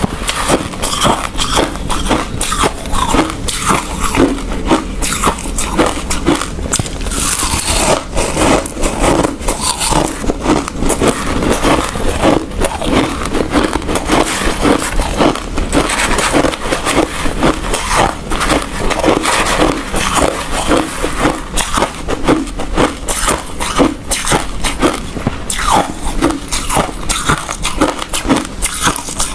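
A person chewing hard ice, with rapid, continuous crunching and cracking several times a second.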